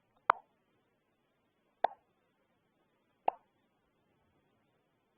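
Three short, sharp pops, evenly spaced about a second and a half apart.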